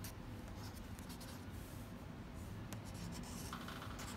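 Faint scratching and rubbing of a Lyra Aquacolor water-soluble wax crayon drawn across sketchbook paper.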